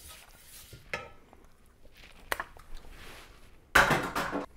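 Pastry brush spreading melted butter around a cast iron skillet: soft, faint scraping strokes with a couple of light clicks. Near the end there is a sudden, louder burst of rustling noise lasting under a second.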